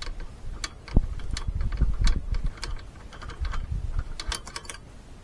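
Scattered metal clicks and clinks of a socket wrench and a seat bolt being handled, with a quick run of clicks about four seconds in.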